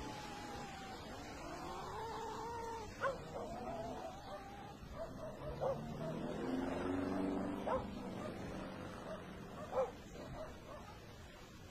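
Dog-like whining with four short, sharp yelps about two seconds apart.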